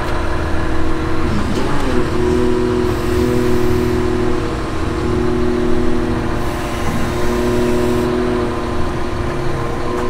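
Diesel heavy-equipment engines running steadily at working speed while a wheel loader slowly raises a tilt ramp carrying a skid steer. The engine pitch dips and recovers about a second and a half in.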